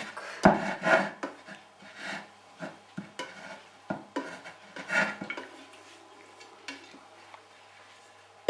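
Upturned stainless steel mixing bowl knocking and clanking against a floured wooden board as it is worked loose from risen dough. The knocks are loudest in the first second and grow sparse after about five seconds.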